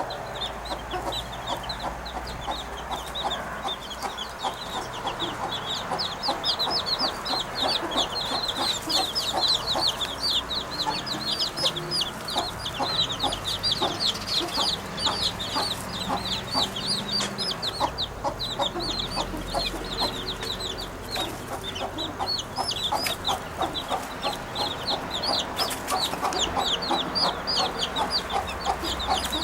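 Birds chirping in a dense, continuous run of quick, short, high notes, many each second, a clucking chatter that sounds like chickens.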